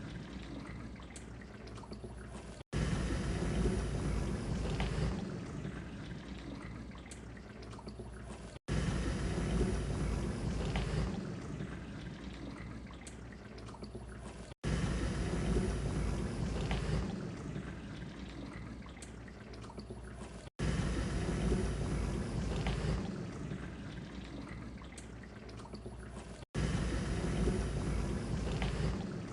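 Dishwasher running, water swishing and spraying inside it. A short recording repeats about every six seconds: each pass starts with a loud surge of water that gradually dies down, with a brief drop-out between passes.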